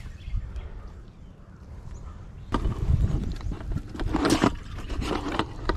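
Hands handling a plastic bucket and its snap lid on grass: irregular scrapes, knocks and rustling that start about two and a half seconds in, after a quieter stretch.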